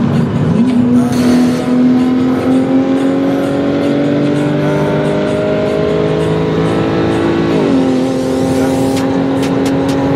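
Car engine pulling hard under acceleration, its note climbing steadily through one gear. About three quarters of the way in it drops sharply on an upshift, then climbs again. A run of sharp clicks comes near the end.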